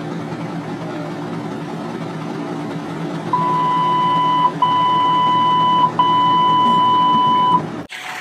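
A steady low vehicle engine hum. About a third of the way in come three long electronic beeps at one high pitch, each over a second long with short gaps between them.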